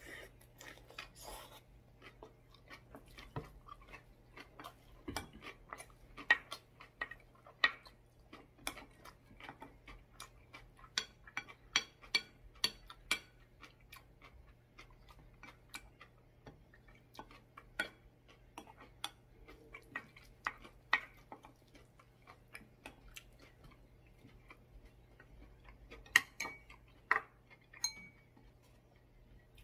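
Close-miked chewing of soybean-sprout rice, with scattered sharp clicks and taps of a wooden spoon and chopsticks against ceramic bowls; the loudest clicks come about six to eight seconds in and again near the end. A faint steady low hum runs underneath.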